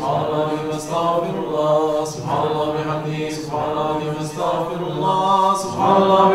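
Male voices chanting Sufi dhikr in unison, a short phrase of glorification of God repeated in a steady rhythm over a held low drone.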